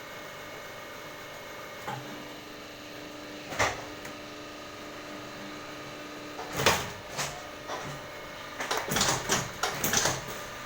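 Water-gallon cap machine running with a steady hum, broken by sharp mechanical clacks and knocks: single ones about two and three and a half seconds in, then a busier run of clacks in the second half.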